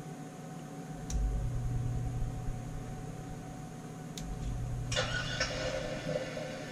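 A small knife blade scraping and shaving at the chipped edge of a revolver grip panel, starting about five seconds in, after a couple of faint clicks and low handling bumps.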